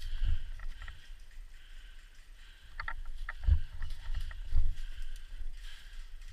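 Dull low thumps with light rustling and a few short clicks in between; the loudest thumps come about three and a half seconds in and again a second later.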